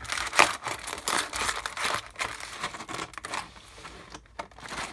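Cardboard trading-card hobby box being torn open along its perforated lid and handled: a run of irregular tearing and crinkling crackles, loudest about half a second in.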